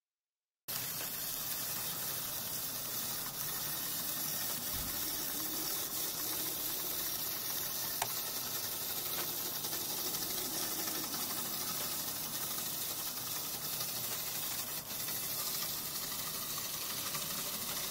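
Steady even hiss of live recording noise. It starts abruptly after a moment of silence and carries no distinct motor or gear tone, with one faint click about eight seconds in.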